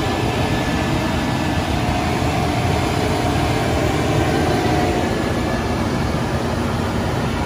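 Seagrave Attacker fire truck's diesel engine idling steadily, with a faint steady tone that fades out about two-thirds of the way through.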